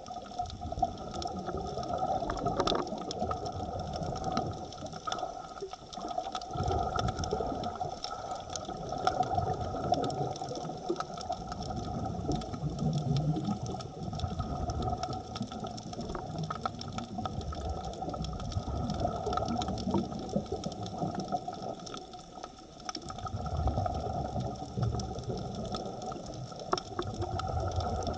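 Underwater sound picked up by a diver's camera: a steady mechanical drone of several even tones, with low bubbling surges every few seconds and scattered faint clicks.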